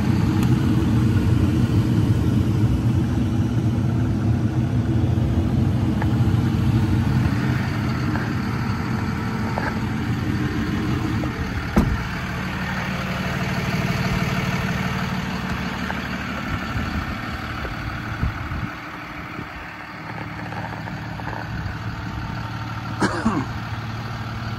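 Freightliner M2's 6.7-litre Cummins diesel idling steadily, louder for the first several seconds. A single sharp knock comes about twelve seconds in.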